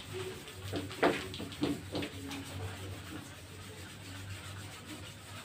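Soft rubbing and scratching sounds over a steady low hum, with a few short low tones in the first two and a half seconds.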